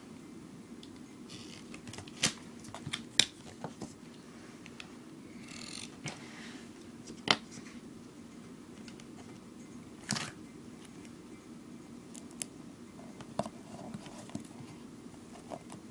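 Hands working duct tape around a cardboard duct-tape roll core: scattered sharp clicks and taps, with two short stretches of tape rustling about a second and five seconds in, over a steady low hum.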